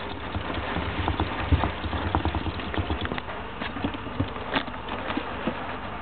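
Golden hamster scrabbling on newspaper bedding: irregular light clicks and paper rustles, with a louder knock about a second and a half in.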